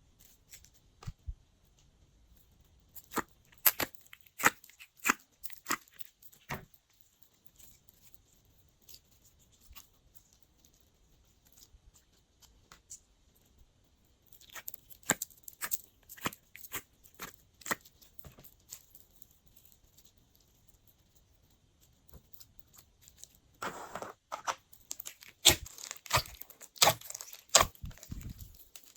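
Glossy slime being squished, stretched and mixed by hand: bouts of sticky clicks and pops, the first about three seconds in, a second around the middle and a busier third near the end, with quiet pauses between.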